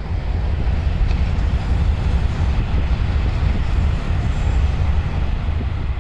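Shinkansen high-speed train running past on an elevated viaduct: a steady rushing rumble that swells up at the start and eases off toward the end.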